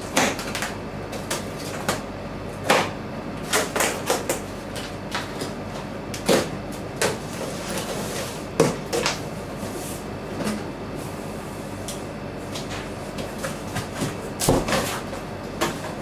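Large cardboard box being unpacked by hand: packing straps and tape pulled off and the flaps folded open, a string of irregular scrapes, rustles and knocks. Under it, the steady hiss of an air conditioner running.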